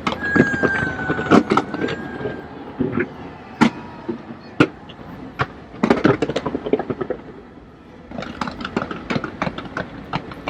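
Fireworks going off: irregular sharp bangs, then a dense run of rapid crackling about eight seconds in.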